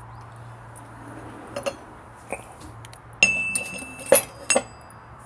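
Metal wheel spacers clinking as they are handled on a wooden board. A few light clicks come first. About three seconds in, a sharp strike rings with a bright metallic tone for about a second, and two more sharp clinks follow.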